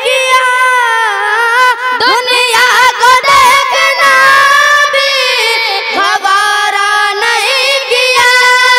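Boys singing a naat into microphones, with long, ornamented held notes whose pitch bends and wavers between phrases.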